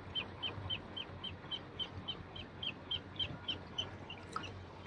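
Small bird chirping in a rapid, even series of short high chirps, about four a second, stopping shortly before the end.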